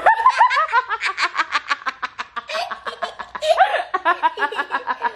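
A young girl laughing, a long run of quick giggles.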